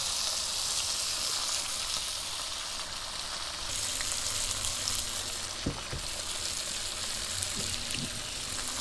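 Bacon frying in a pan on a camp stove: a steady sizzle with a few small pops.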